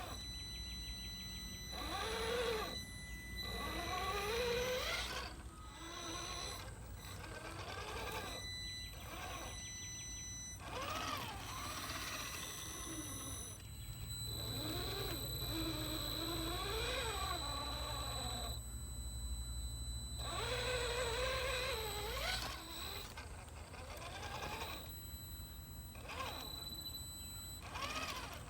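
Traxxas TRX-4 Sport RC crawler's 12-turn Holmes Trailmaster Sport 550 brushed motor, driven by a Hobbywing 1080 ESC, whining in short throttle runs with the pitch rising and falling, with brief pauses between runs. Underneath it is a steady high-pitched whine from the ESC's pulse-width-modulation switching, whose pitch changes as the PWM frequency setting is stepped up.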